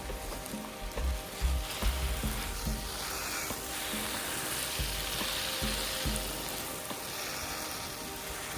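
Steady hiss of water spraying from a garden hose onto plants, with low rumbles of wind buffeting the microphone.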